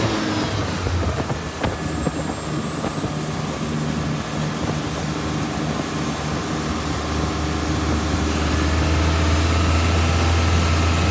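Cummins QSB 6.7 turbo-diesel inboard running a 9 m speedboat at high speed. A high turbo whistle drops in pitch over the first two seconds, then climbs slowly again near the end as the engine note builds.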